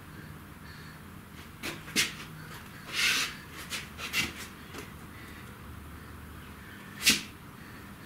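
Irregular clicks and knocks from a cordless drill and an enclosure door being handled while a hinge is fitted, with a brief scrape about three seconds in. The loudest is a sharp click about seven seconds in.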